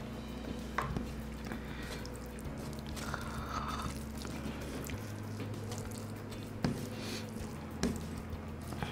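Fingers squishing and mixing biryani rice on a plate, with chewing and a few sharp, wet clicks, over a steady low hum.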